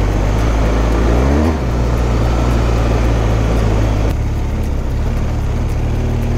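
Adventure motorcycle engine running steadily under load on a dirt trail, heard from the rider's position, with the revs rising briefly and dipping about a second and a half in as if through a gear change.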